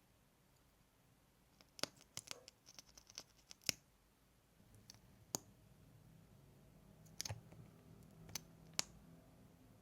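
Close-miked ASMR mouth sounds: sparse, sharp, wet clicks and smacks. A quick cluster comes about two to four seconds in, then a few single clicks further apart.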